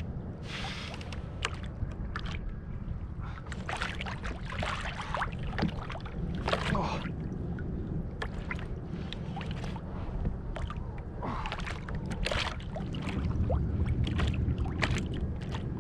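Water sloshing against a kayak's hull with a steady low wind rumble on the microphone, broken by many irregular sharp clicks and knocks; the rumble grows louder near the end.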